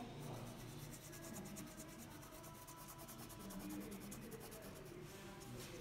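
Crayon scribbling on paper: faint, rapid back-and-forth shading strokes rubbing wax over the sheet.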